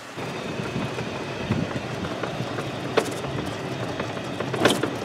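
Golf cart driving: steady running and rolling noise with rattles, a sharp knock about three seconds in and another near the end.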